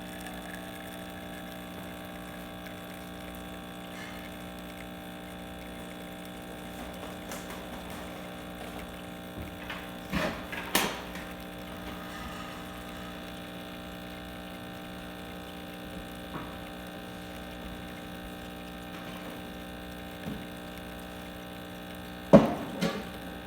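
Breville 900 espresso machine's pump running steadily through a manual shot, with a steady hum and the sound of espresso flowing; the pump is building good pressure. A few sharp clicks or knocks come about halfway through, and a louder knock comes near the end.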